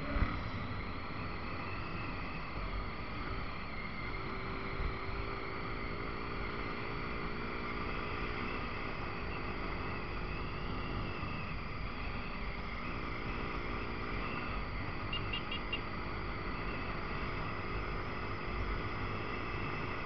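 Yamaha Factor motorcycle's single-cylinder four-stroke engine running under way, its note rising and falling as the bike speeds up and eases off, over a steady rush of wind and road noise. A short knock right at the start.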